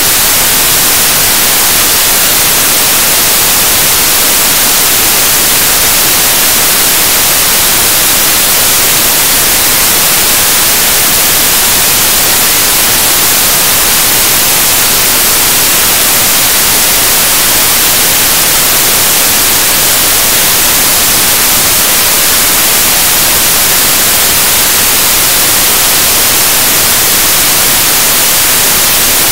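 Loud, steady static hiss, strongest in the high treble. No speech or other sound can be heard through it, even though the interviewee is talking: the audio track carries only noise.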